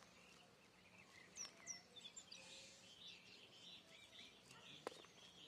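Faint birds chirping, with two quick falling chirps about a second and a half in and scattered twittering after, and a single sharp click near the end.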